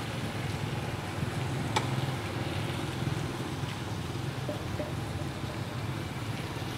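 Outdoor street ambience: a steady low rumble of passing traffic, with a single light click about two seconds in.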